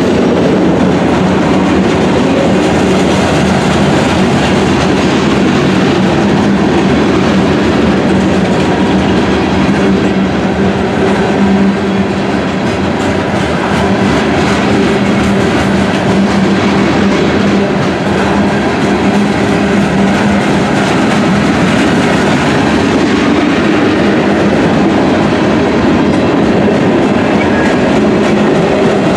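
Freight train cars rolling past close by at a steady speed: continuous rumble and clatter of steel wheels on rail, with a steady low hum underneath.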